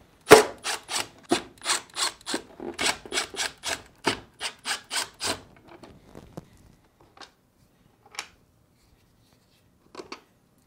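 Phillips screwdriver backing screws out of a plastic refrigerator ice chute plate: a run of short rasping strokes about three a second. After about six seconds they fade to a few scattered light clicks.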